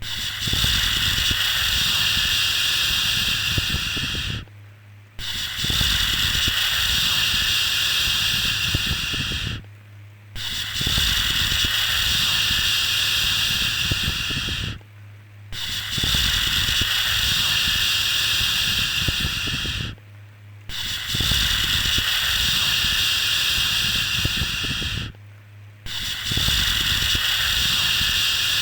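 A looped 'shhh' shushing sound for soothing a baby: a steady hiss held for about four seconds, broken by a short pause, repeating about six times at an even pace, with a low steady hum underneath.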